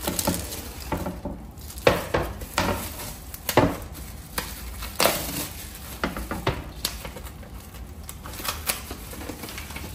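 Kitchenware being handled and set down on a hard surface: irregular knocks and clatter, a few louder ones among lighter clicks.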